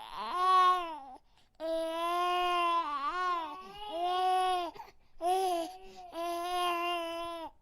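Infant crying: three long wails, the middle one the longest with a wavering pitch, separated by short breaths.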